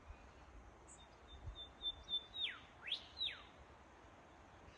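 A bird singing: a quick run of about six short, high, even notes, then three loud whistled sweeps, falling, rising, then falling again.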